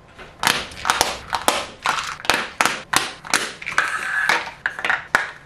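Small plastic pill cases and a weekly pill organiser clicking and clattering as they are handled on a countertop: a quick, irregular run of sharp plastic clicks and knocks, about three a second.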